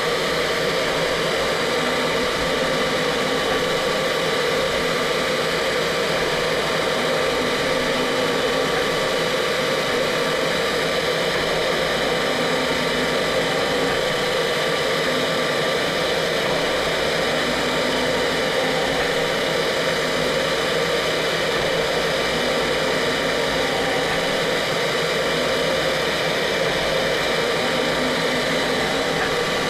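CNC machine running a laser-engraving pass on wood: a steady mechanical whir with a few constant tones over a noisy hiss, with no change in level.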